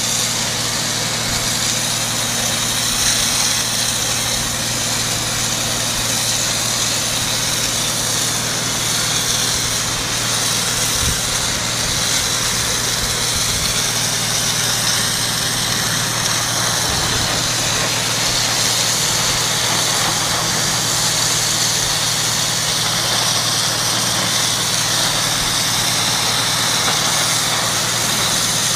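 ZM 50600 Super pressure washer running steadily: a constant motor hum under the even hiss of the high-pressure water jet.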